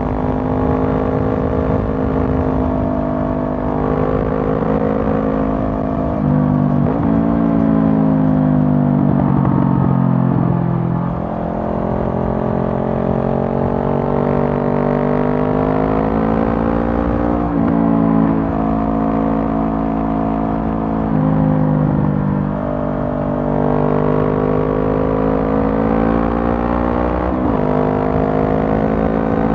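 Honda CB500F's parallel-twin engine running through a Mivv GP Pro slip-on exhaust while riding. The exhaust note steps and slides up and down in pitch with throttle and gear changes, including a long fall in pitch about a quarter of the way in as the bike slows, then climbs again.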